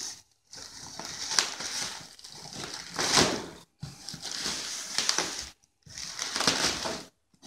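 Plastic wrap crinkling and rustling as it is torn and pulled off a styrofoam shipping cooler, in uneven bursts. The sound cuts out abruptly for a moment several times.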